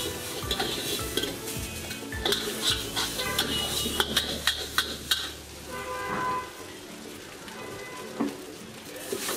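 Metal spatula scraping and clanking against a steel wok as fried rice is stirred and tossed over a gas flame, with the food sizzling. The scraping thins out after about five seconds.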